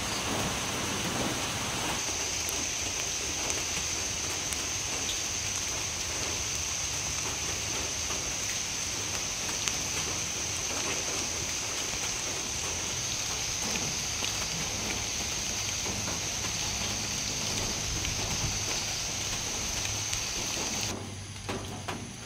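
Steady rain falling on garden plants and leaves. A thin, steady high-pitched tone runs over the rain from about two seconds in, and the rain sound cuts off abruptly near the end.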